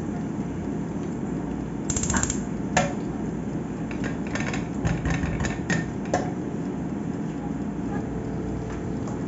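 A spatula knocking and scraping against a cooking pot as a scoop of pork lard is dropped in and stirred, with a few sharp clinks between about two and six seconds in, over a steady low rumble.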